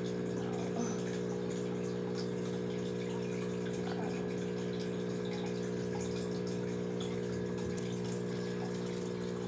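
Aquarium pump giving a steady low hum, with water bubbling in the tank.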